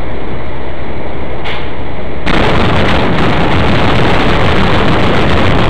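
Loud, steady driving noise from a vehicle at highway speed, a dense road and engine rumble heard through a dash camera. A little over two seconds in, it gets louder and brighter.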